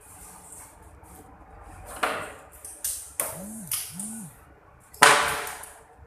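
Metal tools and fittings being handled: a series of sharp knocks and clatter, the loudest about five seconds in.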